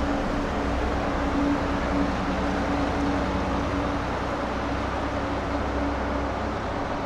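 Bus terminal ambience: a bus engine running steadily, a constant low hum with a couple of held tones over a wash of noise.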